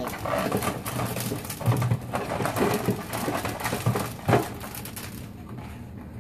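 Hand-cranked MaltMill grain mill crushing malted barley as its crank is turned: a dense crackle of kernels cracking between the rollers over a low rumble, which stops about five seconds in.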